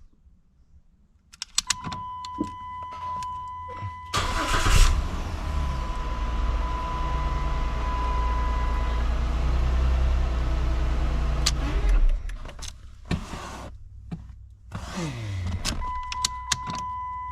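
Chrysler 300's 3.5 V6 cranking and catching about four seconds in, then running steadily for several seconds before it is switched off; the starter now engages because the crank-signal wire is being fed. Clicks and a steady high electronic tone come with the key being turned, and a second start attempt begins near the end.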